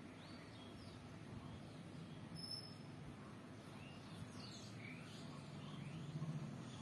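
Faint birds chirping several times over a low, steady background hum.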